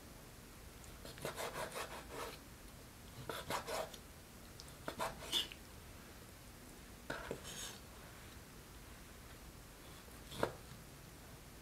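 Chef's knife cutting raw chicken breast and slab bacon on a bamboo cutting board: short runs of quick slicing strokes and taps on the wood. A single sharp knock near the end, the loudest sound, comes as the blade goes through the bacon block and meets the board.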